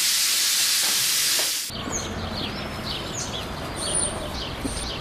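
Shower water spraying with a steady, loud hiss that cuts off abruptly about two seconds in. Then small birds chirping repeatedly over a low rumble of street traffic.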